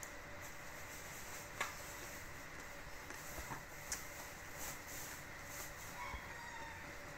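A few light clicks of playing cards being handled and laid out on a carpet, over a faint steady hum. A short faint animal call comes near the end.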